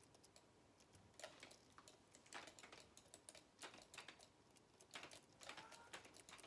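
Faint, irregular clicking of a computer keyboard being typed on.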